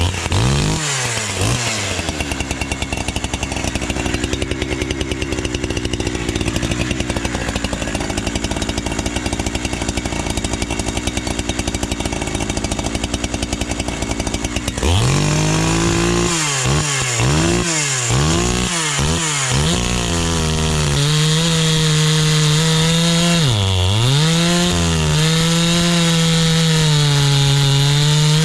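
72cc two-stroke chainsaw, tuned really rich, idling a little fast. About halfway through it is revved up and down several times, then held at high speed, its pitch dipping briefly once about two-thirds of the way through.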